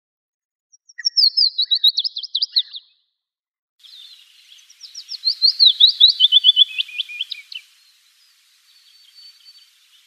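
Willow warbler singing: two song phrases, each a quick run of sweet whistled notes that falls steadily in pitch.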